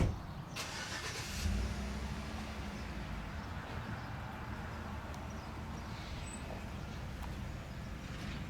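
Motorcycle engine starting about a second and a half in, then running at a steady idle.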